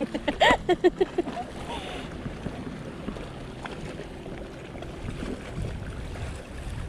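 Wind on the microphone and small waves washing against shoreline rocks, a steady rushing. In the first second or so a person's voice sounds briefly in short pitched bursts.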